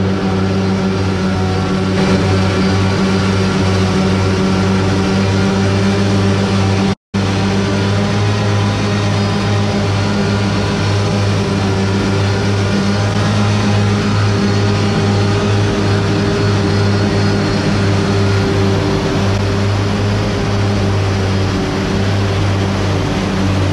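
Heavy diesel engine of a self-propelled forage harvester running steadily at constant working speed, a low even hum with no change in pitch. The sound cuts out briefly about seven seconds in, then goes on unchanged.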